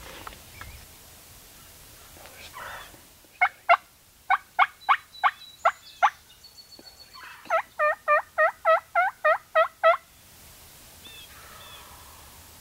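Wild turkeys calling: a run of about nine sharp notes a few seconds in, then a faster string of about eleven notes, taken by the hunters for a hen clucking and the gobblers answering with a gobble.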